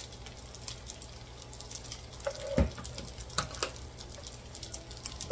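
Fried rice sizzling gently in an electric skillet with scattered small pops and crackles as wooden spatulas turn it, over a steady low hum. There is one dull knock about two and a half seconds in.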